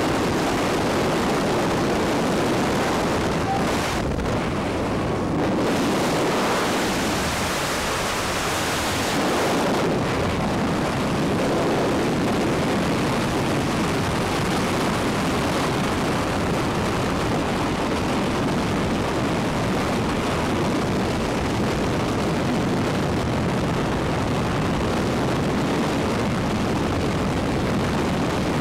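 Steady, loud rush of freefall wind over a camera microphone during a skydive, briefly duller about four seconds in.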